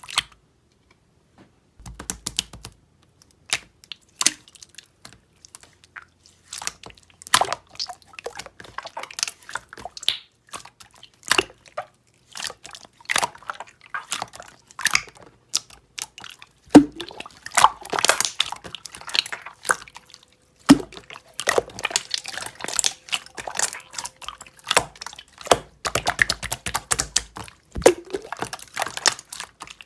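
Slime being squished and pressed by hand, giving irregular wet clicks, pops and crackles that come thick and fast after the first couple of seconds.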